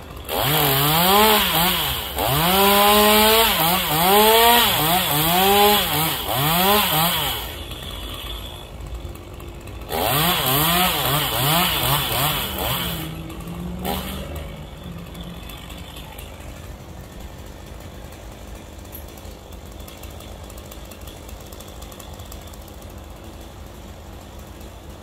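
Two-stroke chainsaw revving and cutting in two runs: a first run of about seven seconds with the engine pitch rising and falling over and over, then after a short pause a second run of about three seconds that drops to a steady idle and cuts off about fourteen seconds in.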